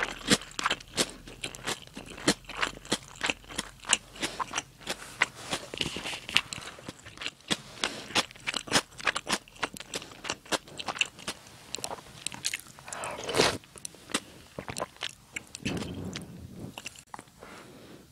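Close-miked mouth sounds of someone chewing food with a crunch: a quick run of sharp crunches, several a second, with one longer, louder sound about thirteen seconds in.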